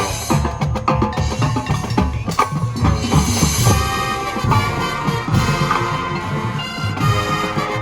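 High school marching band playing its field show, with a steady beat of drum hits and pitched percussion prominent.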